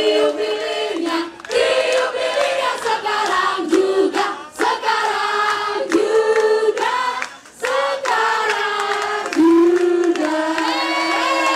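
A group of voices singing a birthday song together over a candle-lit cake, in held notes that step up and down in phrases with short breaks between them.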